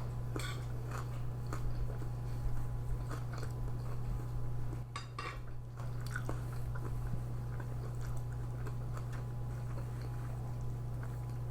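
Close-up chewing and biting of a pork spare rib stir fry, with scattered light clicks of utensils on dishes, over a steady low hum.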